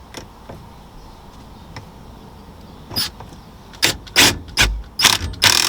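Impact wrench fired in a few short bursts on the steering-wheel hub nut, tightening it, after a quiet first few seconds.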